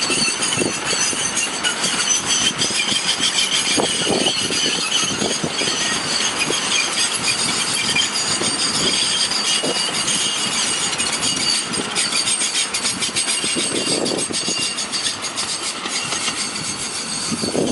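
Loaded sugarcane bins on a narrow-gauge cane railway rolling past. Their wheels give a steady high-pitched squeal over a rolling rumble, with irregular clacks and knocks from the wheels. The squeal eases near the end.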